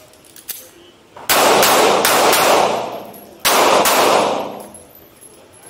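Handgun shots fired in two quick strings, the first about a second and a half in and the second about three and a half seconds in, each shot echoing off the walls of an indoor range.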